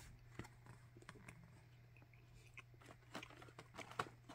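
Near silence: a low steady hum with a few faint scattered clicks.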